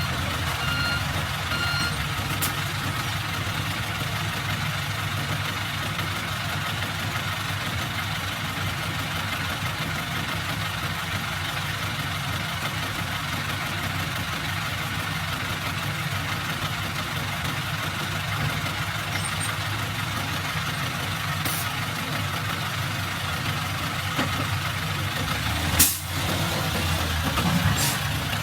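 Heavy diesel machinery running steadily: the engines of a wheeled excavator and dump truck at work. A reversing alarm beeps a few times in the first second or so, and a single sharp knock sounds near the end.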